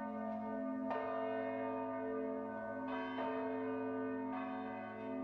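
Church bells ringing, with a new strike about every one to two seconds, each ringing on under the next.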